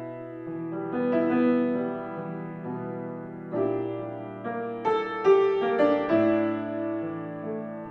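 Solo piano playing a slow, gentle piece: chords struck every second or so over held low bass notes.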